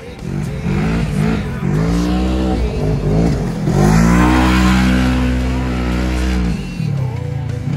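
Side-by-side UTV engine revving up and down several times, then held at high revs while it spins in loose sand, easing off near the end.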